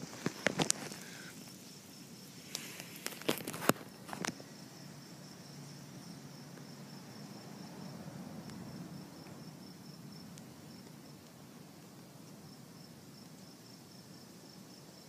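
Crickets chirping in a steady, high-pitched pulsing trill. A few sharp clicks and knocks come in the first second and again about three to four seconds in.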